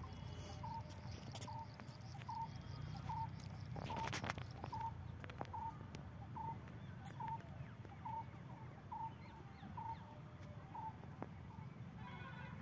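A bird calling one short, clipped note over and over, about two a second, over a low steady rumble of outdoor background noise.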